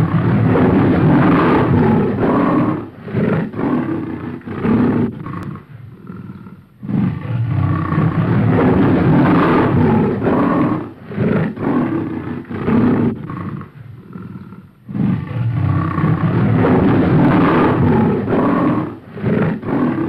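Reconstructed roar of an American cave lion, a lion-like roaring bout: one long roar followed by a series of shorter roars that fade off. The same bout is heard three times, starting again about 7 seconds and 15 seconds in.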